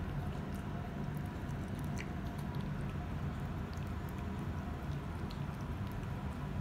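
A cat chewing flaked fish, heard as scattered small clicks over a steady low hum.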